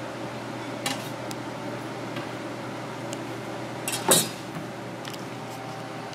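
Kitchen clatter as sliced mushrooms are handled in a plastic colander at a sink: a short knock about a second in and a louder clatter about four seconds in, over a steady background hum.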